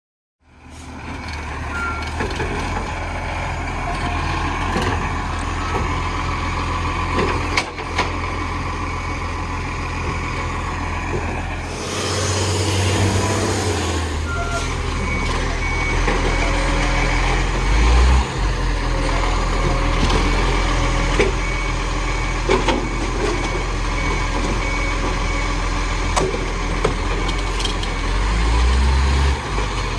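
Dennis garbage truck running with a steady low engine rumble, a short hiss of air about twelve seconds in, and its reversing beeper sounding in an even run of beeps through the second half.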